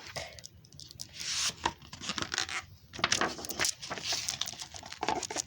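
Rustling, rubbing and scraping handling noise with many light clicks, as small objects are picked up and moved about by hand.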